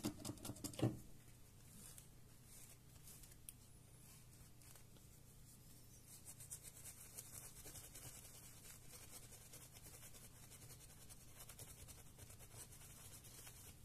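Faint rubbing and small clicks of hands handling a disassembled laptop mainboard and its parts, with a somewhat louder knock about a second in, over a low steady hum.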